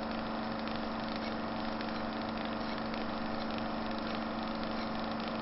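A steady, even drone holding one constant low pitch, mechanical in character like an idling motor.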